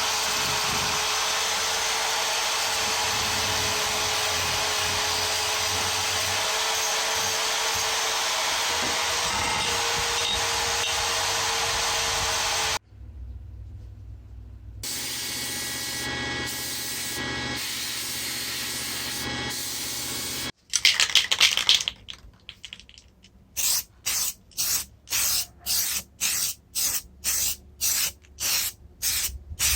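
Spray painting hissing, first as one long continuous spray for about thirteen seconds. After a couple of breaks it comes as short, even puffs at about two a second near the end.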